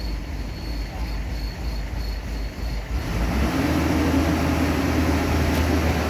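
FMWorld Bimo crawler combine harvester's engine running with a low rumble. About halfway through it revs up and becomes louder, settling into a steady, even hum.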